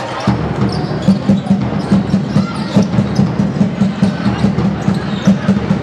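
A rapid, steady drumbeat of about four low beats a second, with the squeaks and knocks of play in a sports hall over it.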